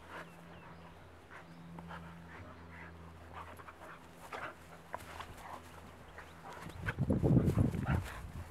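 Bernese mountain dog puppies play-fighting, with panting and short scattered play noises, and a much louder, rough burst about seven seconds in.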